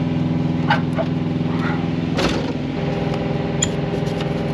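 Diesel semi-truck engine idling steadily, with a few short clicks and knocks as the Freightliner Cascadia's hood latches are worked.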